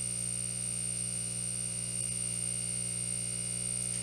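Steady electrical hum and buzz with a constant high-pitched whine above it, unchanging throughout.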